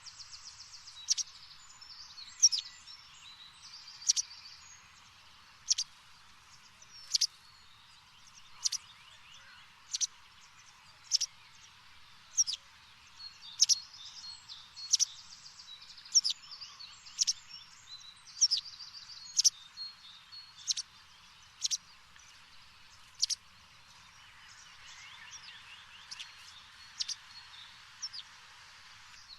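A small bird chirping over a faint hiss, one sharp call about every second and a half, with short fast trills near the start and again near the end.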